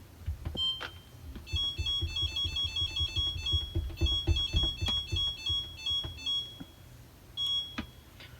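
Samsung DW80R5061UG dishwasher's control panel beeping as it is powered up: a single high beep, then a quick electronic tune of high beeps lasting about five seconds, and another single beep near the end. Dull low bumps sound underneath.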